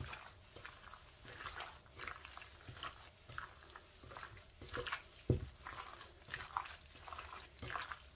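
Raw chicken pieces in marinade being squeezed and turned by a gloved hand in a glass bowl: irregular wet squelches, several a second, with a dull thump about five seconds in.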